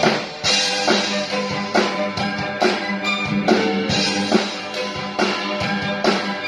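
Stage music with a drum kit keeping a steady beat, a strong hit a little under every second, over sustained instrumental notes.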